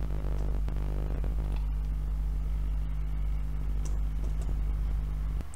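Steady low electrical hum in the recording, with a few faint clicks of computer keys as code is typed. The hum drops away near the end.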